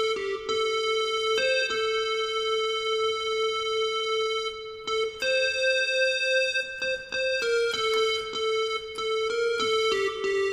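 Casio electronic keyboard playing a slow single-note melody with one hand, in an even sustained tone, stepping between nearby notes with a few long held notes.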